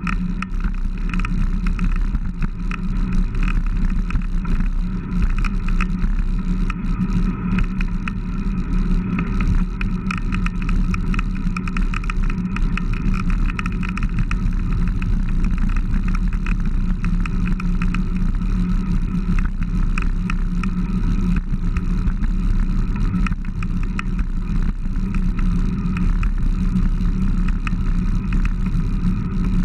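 Steady wind and road noise from a moving bicycle, picked up by a camera mounted on its handlebars.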